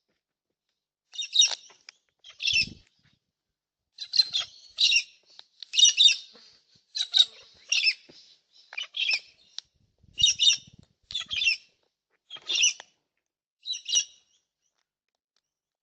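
Birds at a backyard feeder giving a string of short, high chirping calls, about a dozen of them spaced out with brief gaps between.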